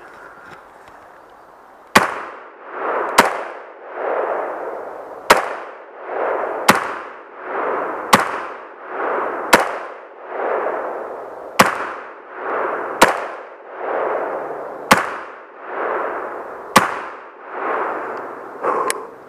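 Rifle shots fired one at a time, about eleven in all, spaced roughly one and a half to two seconds apart, each followed by a rolling echo that swells and fades.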